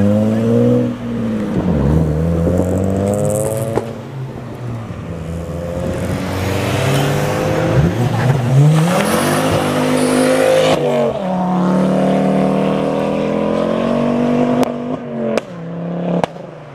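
Modified cars pulling away one after another. Their engines rev up in pitch and drop back between gear changes, over and over. A few sharp cracks come near the end.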